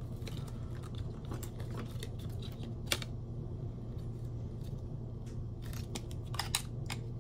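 Scattered small plastic clicks and taps as a screwdriver pries an old car speaker out of its brittle plastic bezel, the sharpest about three seconds in and two more near the end. A steady low hum runs underneath.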